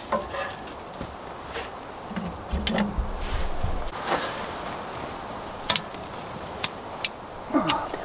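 Kindling being handled and a small Yukon Wolf wood stove being lit: wood knocks and rustling, a low rumble around the middle, then a few sharp clicks in the last few seconds.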